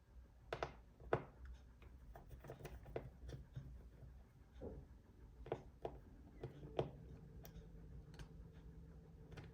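Scattered light clicks and taps of a laptop and small tools being handled, irregular and a few seconds apart, with a faint steady hum coming in about seven seconds in.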